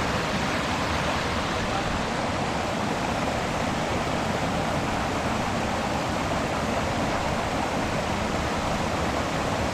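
Steady rushing of a mountain waterfall: a constant, even noise of falling water with no breaks or changes.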